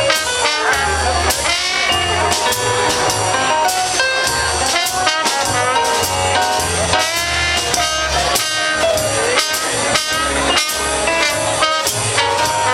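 Music with a steady drum beat, a bass line and pitched instruments.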